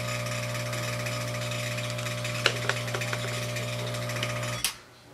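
Steady electrical hum with a fan-like hiss from microsoldering bench equipment, with a few light ticks about two and a half seconds in; it cuts off abruptly near the end.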